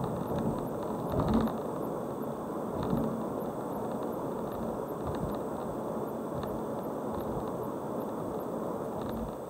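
Car driving along a road: a steady rumble of tyres and running gear, with a couple of short bumps from the road surface about a second and three seconds in.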